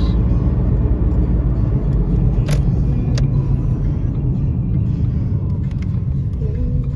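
Car on the move heard from inside the cabin of a 2007 Ford Mustang: a steady low rumble of engine and road noise, with a couple of sharp clicks about two and a half and three seconds in.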